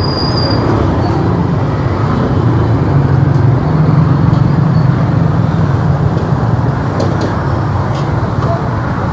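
Street traffic noise with a low vehicle engine rumble that swells a few seconds in and then eases.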